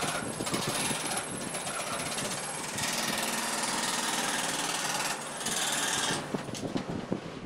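Traditional overhead-arm jigsaw (scroll saw) running, its fine blade stroking rapidly up and down as it cuts a fretwork pattern through a wood sheet. The cutting noise dips briefly a few times and thins out about six seconds in.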